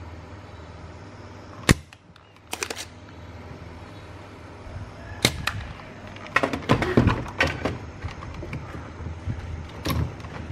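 A spring-loaded desoldering pump fires with one sharp snap, followed by a couple of lighter clicks. From about halfway on come irregular clicking and rattling as the circuit board and its potentiometers are handled, over a steady low hum.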